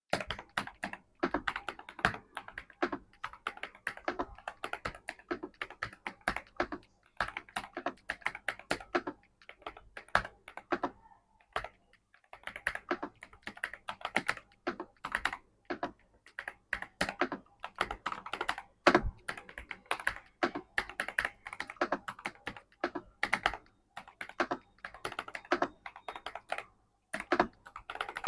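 Typing on a Monka 3087 Pro V2 mechanical keyboard with KTT Hyacinth linear switches: a quick, continuous run of keystroke clacks, with a few short pauses.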